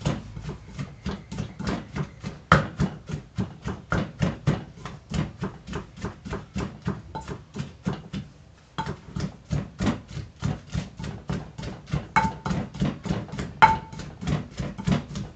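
Wooden pestle pounding boiled chillies and herbs into a paste in a clay mortar: steady thuds about four a second, with a short pause about eight seconds in. A few strikes ring briefly.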